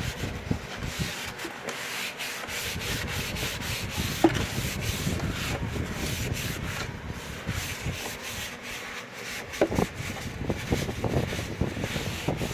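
Heavy-duty cleaning wipe being scrubbed around the inside of a tube tester's case: irregular rubbing strokes, with a couple of short squeaks.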